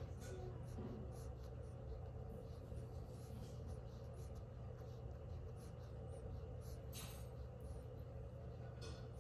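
Faint, scattered scratching and rustling of a small Greek tortoise's claws and shell scraping against a towel and the hand holding it, over a steady low hum.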